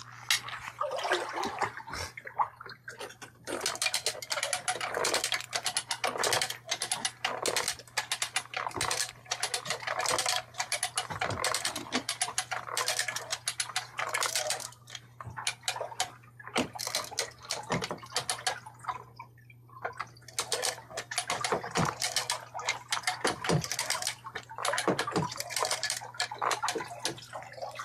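Water splashing and sloshing in quick, irregular splashes and knocks over a steady low hum, with a short lull about two-thirds of the way through.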